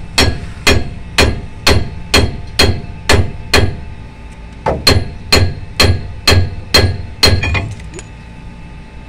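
Hammer striking metal in steady blows, about two a second, with a ringing metallic edge, on work on a vehicle's wheel hub. The blows pause briefly about four seconds in, then resume and stop about a second before the end.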